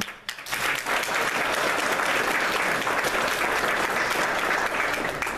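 Audience applauding, a steady patter of many hands clapping that builds up in the first second and tails off near the end.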